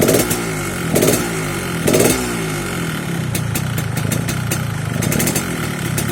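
Yamaha RX-King two-stroke single-cylinder motorcycle engine blipped three times about a second apart, each rev dropping straight back, then running steadily with a crackling, raspy note. The tone is the 'ngorok' (snoring) and 'garing' (crisp) sound that comes with a new-model filter.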